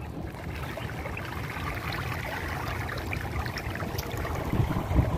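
Swimming-pool water lapping and trickling into the slatted overflow gutter at the pool's edge, with wind buffeting the microphone in low gusts that are strongest near the end.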